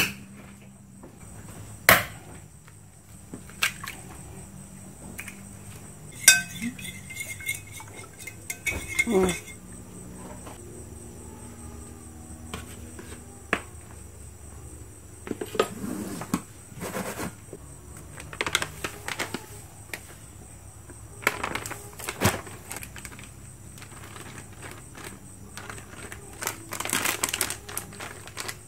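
Eggs cracked on a ceramic plate and beaten, with scattered clinks and taps of utensils on the dishes. A low steady hum and a faint high whine run underneath.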